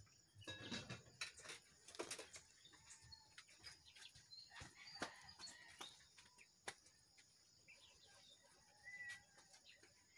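Faint clicks, knocks and rustles of plastic plant pots and leaves being handled on a wire shelf, several in the first two seconds and a few more near the middle. Faint bird calls, including chickens, sound in the background, with a short chirp near the end.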